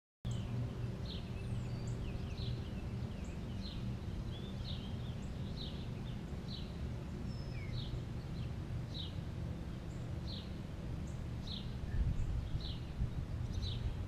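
A bird calling with short, high, falling chip notes, repeated about once a second, over a steady low outdoor rumble.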